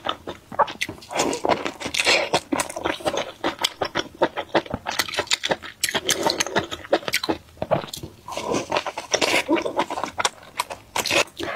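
Close-up eating sounds of a pig blood sausage (pork large intestine stuffed with pig blood): gloved hands tearing it apart, then biting into it, with a dense run of wet clicks and smacks.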